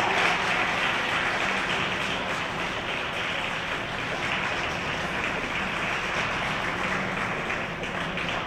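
Audience applauding at an ice rink, the clapping slowly dying down.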